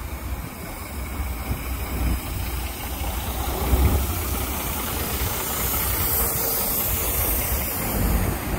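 Street traffic passing close by: a semi-truck's diesel engine pulling an empty container chassis trailer runs past with tyre noise among passing cars, loudest about four seconds in.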